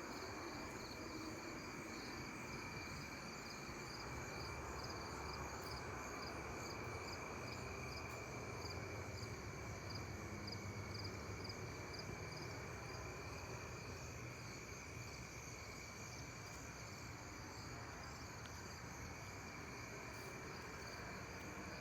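A steady, directionless rushing hiss like distant highway traffic, which the listeners cannot account for. Crickets and other insects chirp steadily over it, one of them in a pulsing trill about twice a second.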